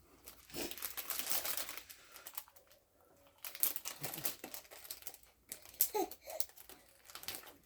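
Plastic snack wrapper crinkling as it is handled, in two stretches: over the first two seconds, then again from about three and a half seconds in.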